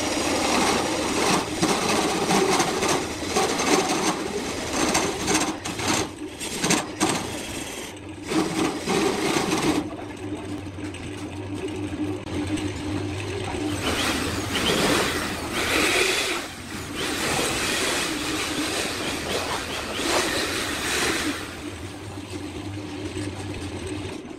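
Electric wood lathe running while a turning tool cuts into the spinning wooden piece, a rough scraping hiss with crackling chatter as shavings come off. About ten seconds in the cutting stops and the motor's steady hum is left, broken by a few more brief rough bursts of noise.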